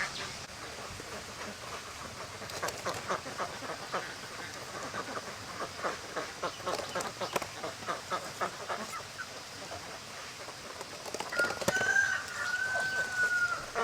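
A duck flock calling in many short, quick quacks, then near the end a rooster crows once in a long held call, the loudest sound here.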